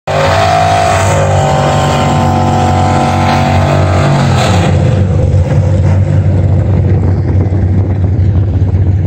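Drag-car engine held at steady high revs through a tyre-smoking burnout, the revs falling away about four and a half seconds in. After that the drag cars' engines, a 2018 Camaro SS's V8 among them, keep running loudly at the start line.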